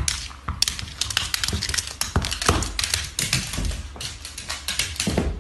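Rapid, irregular clicking and tapping of a small dog's claws scrabbling on a hardwood floor as it scrambles after a tennis ball, with a few heavier thumps.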